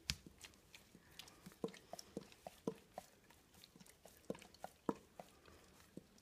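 A dog licking and smacking its mouth: faint, irregular wet clicks and smacks, two or three a second.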